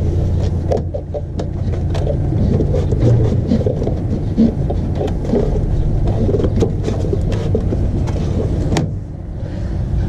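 A rag wiping up spilled brake fluid: rubbing and scraping with many small knocks, over a steady low rumble.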